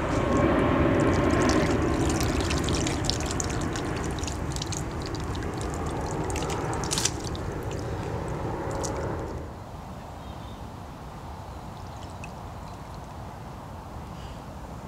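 Water sloshing, trickling and dripping as a big carp is held in the shallow lake margin and released, with small splashes. The water noise drops away suddenly about nine and a half seconds in, leaving a quieter steady background.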